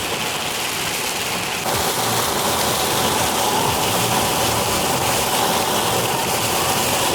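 Heavy rain on a car's roof and windscreen, heard from inside the car as a dense, steady hiss that gets louder about two seconds in.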